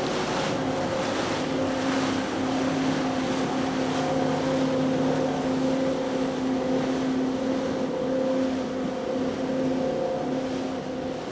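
Glacier Bay 3480 Ocean Runner power catamaran running at speed on its outboard motors: a steady engine drone over the rush of its wake and spray, easing slightly near the end as it pulls away.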